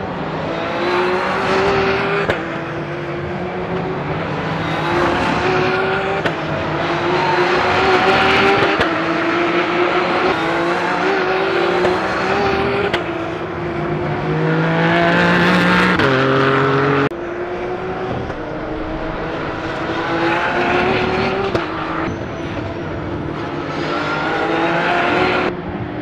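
Several Porsche race cars' flat-six engines at high revs, the pitch climbing and dropping in steps as the drivers shift gears and cars pass through a corner. The sound changes abruptly twice, about two-thirds through and near the end.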